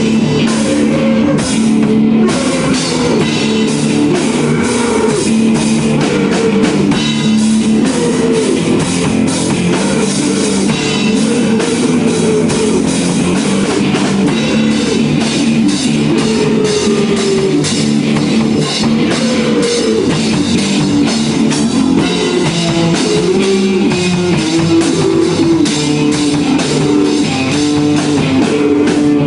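Live rock jam on drum kit and electric guitar, the drums striking steadily over sustained guitar notes and riffs.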